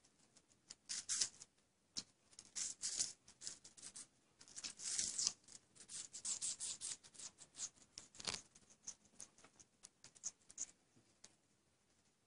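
Ring-necked parakeet biting and crunching a piece of food held out to it: rapid runs of short, crisp crunching clicks in irregular clusters, thinning out toward the end.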